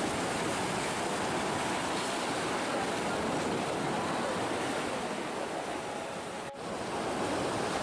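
Sea surf breaking and washing around large rocks: a steady, dense rush of wave noise that briefly drops out about six and a half seconds in.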